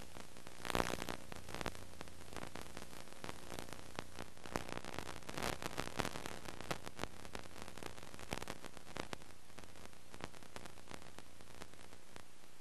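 Hiss and a steady low hum from a blank stretch of videotape playing back, with scattered clicks and crackles of static. The crackling is thickest about a second in and again around five to six seconds in.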